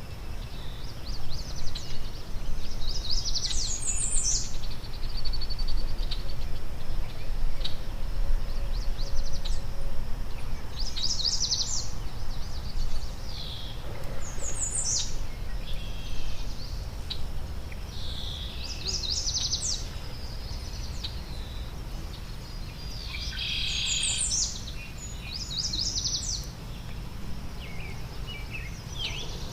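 Wild songbirds calling at a backyard feeder: short, high, quickly sweeping phrases repeat every few seconds, with a busier cluster about 24 to 26 seconds in. A steady low rumble runs underneath.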